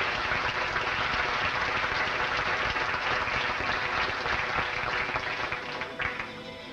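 Audience applauding an award recipient: a dense, steady patter of many hands clapping that dies away near the end.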